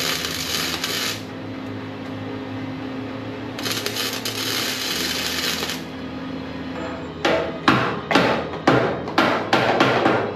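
Two short bursts of arc welding, each a steady crackling hiss of about two seconds, laying tacks on steel. Near the end come about seven ringing hammer blows on the steel, roughly two a second, as if testing the tacks.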